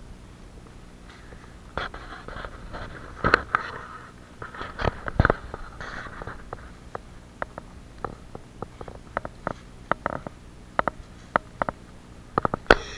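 Cattle grazing close by: grass being torn and chewed in irregular crunches and snaps, starting about two seconds in and coming in a quick cluster near the end.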